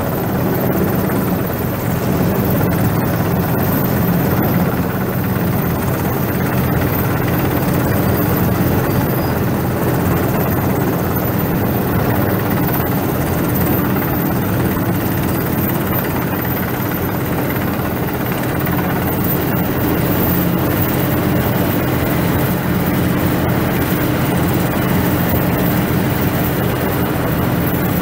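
Helicopter hovering low overhead, its rotor and engine running loud and steady.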